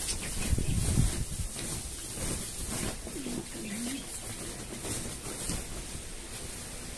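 A dove coos once, a short low call about three seconds in. Low thuds and rustling of hands working in potting soil come near the start.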